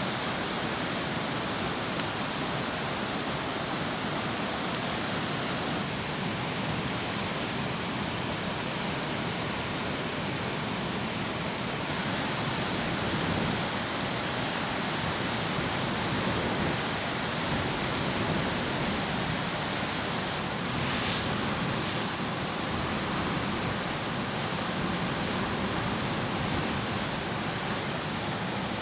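A steady rushing noise outdoors, with a few faint ticks and a brief brighter hiss about two-thirds of the way through.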